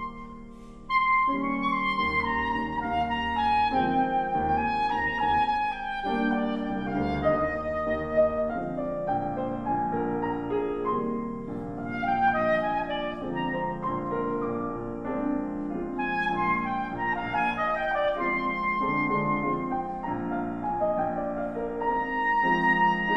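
Soprano saxophone playing a classical melody with grand piano accompaniment. The music thins to a brief hush just after the start, and both instruments come back in about a second in.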